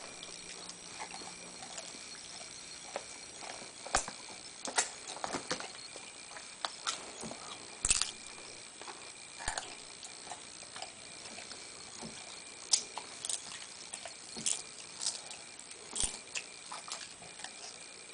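Irregular crinkling and crackling of a foil potato-chip bag being rummaged, mixed with the crunch of potato chips being chewed by a small child. The sharp crackles come singly and in little clusters a second or two apart over a faint background.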